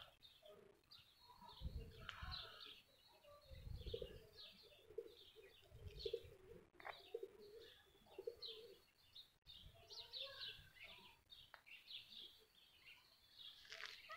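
Faint small birds chirping again and again, with a dove cooing in a run of low repeated notes from about four to seven seconds in. A few soft low thuds come under them.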